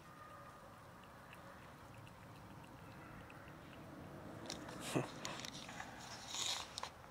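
A cat eating wet cat food chunks, chewing faintly at first, then with sharper clicks and snaps from about four and a half seconds in; the loudest is a single knock about five seconds in.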